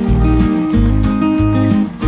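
Background music: guitar over a steady, regular bass beat.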